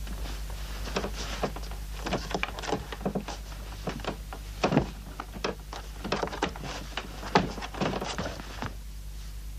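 A rapid run of clicks, knocks and clatters, like a telephone and small tools being handled and worked on, over a steady low hum. The knocks start about a second in and stop shortly before the end.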